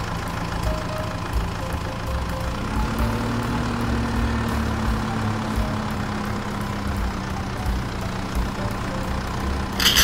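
Truck engine idling steadily with a low rumble. Its pitch rises slightly about three seconds in and slowly settles back.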